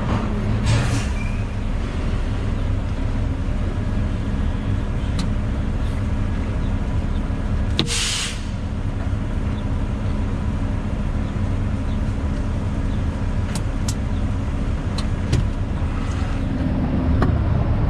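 Loaded grain truck's diesel engine running steadily, with a short hiss of air about eight seconds in and a few light clicks.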